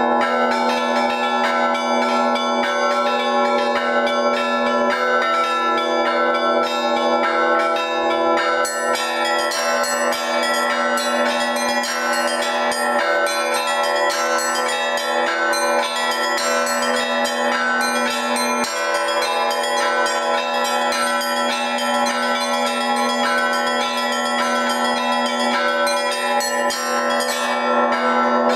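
Russian Orthodox church bells hand-rung by one bell-ringer. A fast, dense pattern of strikes on the small high bells rings over the long, steady ring of the lower bells.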